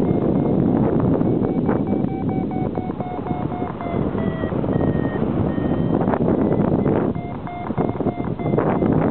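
Paragliding variometer beeping in quick short pulses, its pitch sliding a little lower in the middle, the beeping that signals climbing air. Wind rushes steadily over the microphone, with a few louder gusts near the end.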